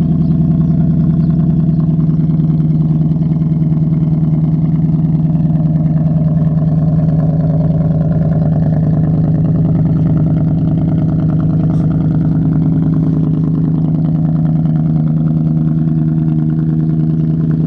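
Jaguar S-Type exhaust idling loudly and steadily just after a cold start.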